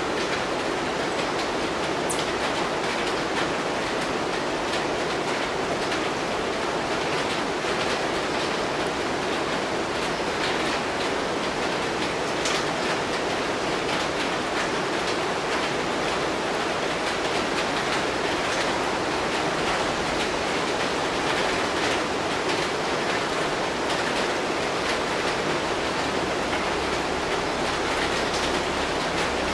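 Steady rain falling on forest foliage, an even hiss, with a few sharper drop ticks.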